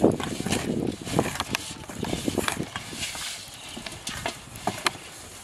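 Hands kneading and squeezing wet bait in a large metal basin, making irregular sharp clicks and squelchy knocks that thin out toward the end.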